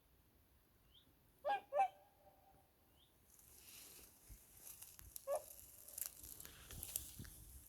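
Swans calling: two short honking calls in quick succession about a second and a half in, and another single call about five seconds in. From about three seconds on there is a faint hiss with scattered clicks underneath.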